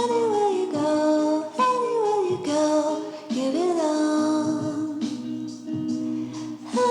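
Background music: a song with a female voice singing a gliding melody over steady instrumental accompaniment.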